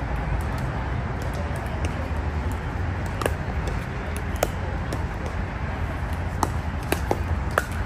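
Pickleball paddles striking a plastic ball: sharp, short pocks at uneven intervals during a rally, most of them in the second half, over a steady low outdoor rumble.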